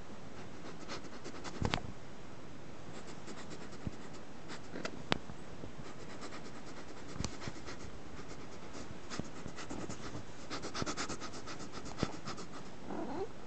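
A cat pawing and nosing through a fabric bedspread and blankets: irregular scratching and rustling of cloth with scattered sharp clicks, and a quicker run of scratches near the end.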